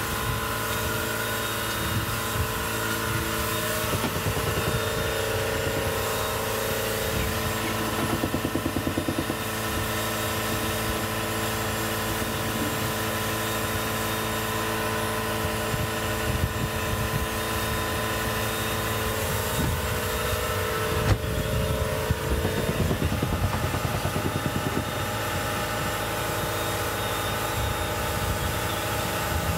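A motor or engine running steadily, a droning hum of several fixed tones, with one sharp click about two-thirds of the way through.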